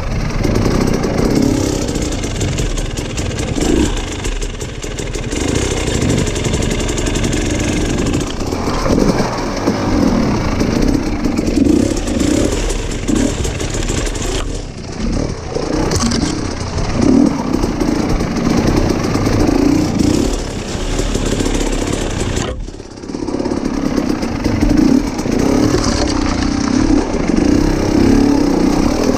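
Off-road motorcycle engine running under constantly changing throttle, revving up and easing off as it climbs over rough trail, with a brief drop in the engine sound about three quarters of the way through.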